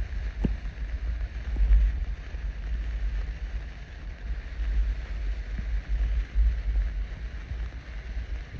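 Uneven low rumble of wind buffeting the microphone over a steady, faint fizzing hiss from several hand sparklers burning, with a few faint crackles.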